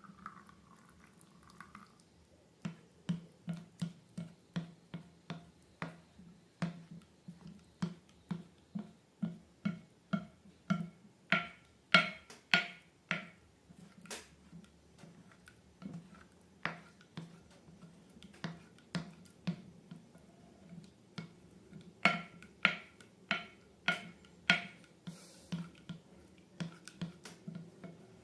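Slime being squeezed and worked by hand, giving a run of sharp wet clicks and pops about two a second, loudest around the middle and again near the end.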